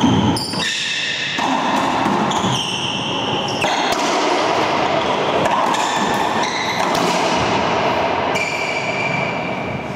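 Racquetball doubles rally in an enclosed court: the ball struck by racquets and smacking off the walls and floor again and again, ringing in the hall, with short high sneaker squeaks on the hardwood floor.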